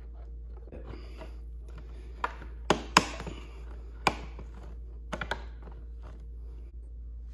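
Tow-mirror replacement glass being pressed onto the power-mirror motor mount, snapping into place with a string of sharp plastic clicks. They start about two seconds in, the loudest comes about three seconds in, and they end with three quick clicks close together.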